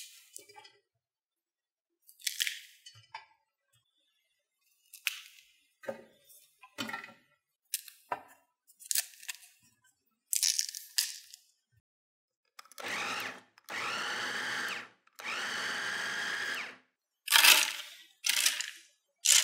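A series of short crisp snaps and knocks while cauliflower is prepared. Then a food processor motor runs steadily in two bursts of about two seconds each, chopping the cauliflower into rice. Near the end come a few sharp knocks as the riced cauliflower is tipped out of the container onto a lined baking tray.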